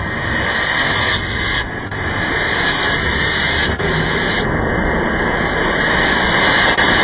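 A loud, steady harsh noise like static, with no clear tone or rhythm in it.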